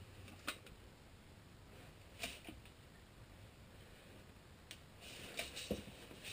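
A few faint, scattered clicks and knocks of tools and materials being handled over low room noise, with a small cluster near the end.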